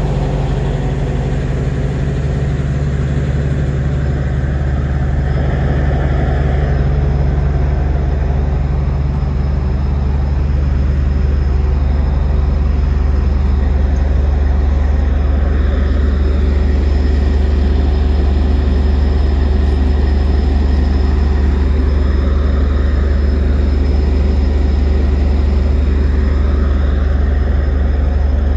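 Caltrain diesel locomotive idling beside the platform: a steady low engine drone, getting a little louder about eleven seconds in.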